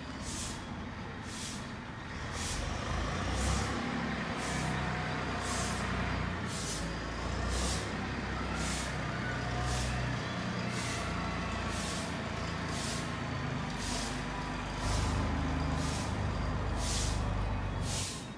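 Lime powder flung by hand onto a dirt floor, a rhythmic swish about three times every two seconds, over a steady engine rumble.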